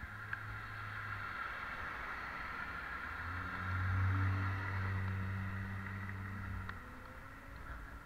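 A car driving past close by in the next lane: a low engine hum with road hiss that swells to its loudest about four seconds in, then falls away.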